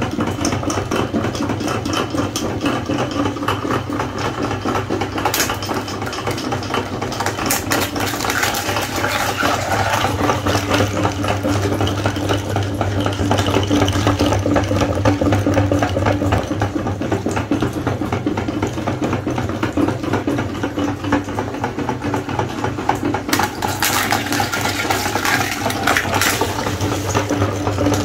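Meat grinder running steadily with a constant mechanical hum while it crushes whole eggs, shells crackling densely as the mash is forced through the plate. The hum grows stronger about a third of the way in.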